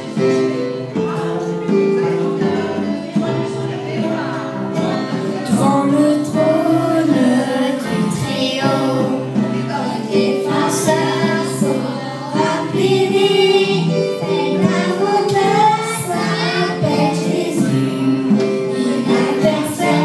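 A group of children singing together into microphones over amplified instrumental accompaniment, with a woman's voice among them.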